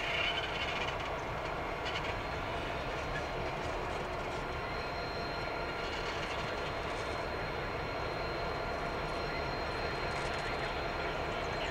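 Two EMD-engined diesel-electric locomotives, a BL class leading a G class, moving slowly at low throttle with their engines running steadily and a thin, steady high whine.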